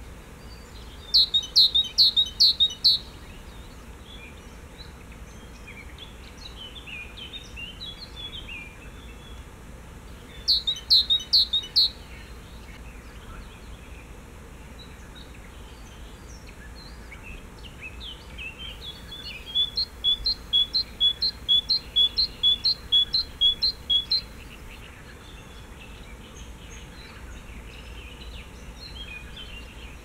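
A songbird singing clear, evenly repeated high notes in three phrases: a short run of about five near the start, another shortly before the middle, and a longer run of about a dozen past the middle. Softer twittering is heard between the phrases.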